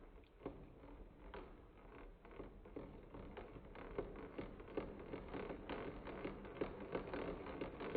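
Ratchet and pawl of a Crunchlabs coin-spinner toy clicking as it is turned, the clicks irregular at first and coming faster and closer together toward the end.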